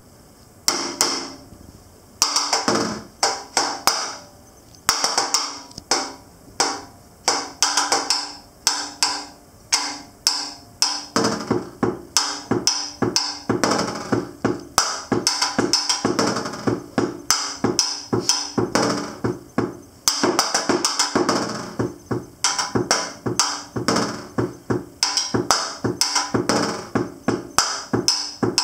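Snare drum played with wooden sticks as a solo: sharp accented strokes and quick rolls in short phrases separated by brief pauses, the phrases growing denser about halfway through, with the drumhead ringing under the strokes.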